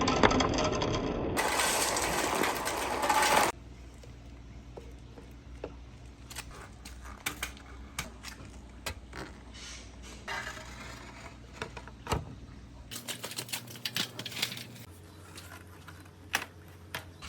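Marbles rolling and clacking down a marble run: a loud, dense rattle of many marbles for the first few seconds, which cuts off suddenly, then a quieter run of scattered clicks and taps as single marbles knock along the track.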